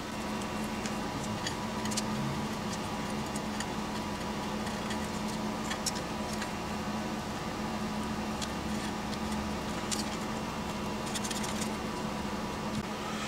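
Scattered small clicks and taps of hands handling wires, connectors and the aluminium case while an amplifier board is fitted into a project box, over a steady low hum.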